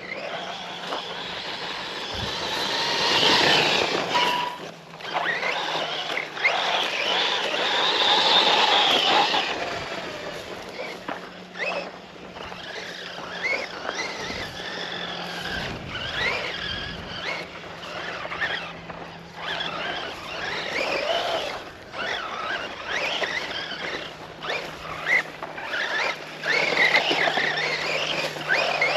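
Brushless electric RC truck driving off-road: the motor whines up and down in pitch with the throttle over tyre and ground noise, with louder bursts of acceleration a few seconds in and near the end.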